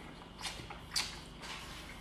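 Close-up mouth sounds of a person eating: short wet smacks while chewing, the clearest about half a second and a second in.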